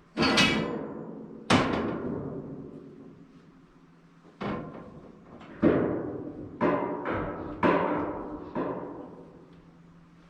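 Metal clanging from steel livestock handling-system panels being assembled: about eight sharp strikes, each ringing on and dying away, two near the start and a quicker run of them in the second half.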